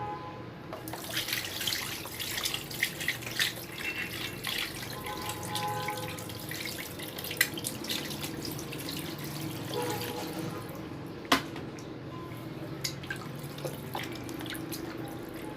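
Kitchen tap running into a sink while a raw duck is rubbed and rinsed by hand, with splashing and small clicks, and two sharp knocks against the sink.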